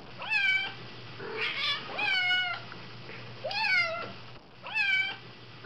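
Domestic cat meowing over and over: drawn-out calls that rise and then fall in pitch, about one a second, with a shorter, rougher cry among them. The same run of meows starts over after about four and a half seconds.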